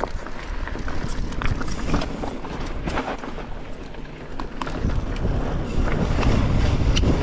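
Mountain bike riding over rock: tyres rolling and crunching with scattered knocks and rattles from the bike, and wind rumbling on the microphone, louder from about five seconds in.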